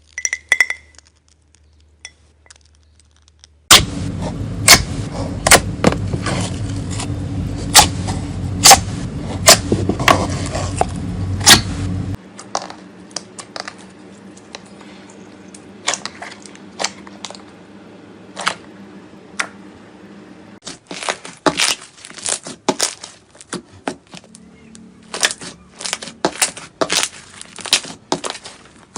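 Slime being squeezed and poked by hand, giving sharp pops and crackles from air pockets bursting. A steady low hum runs under the first several seconds, and the pops come thick and fast again near the end.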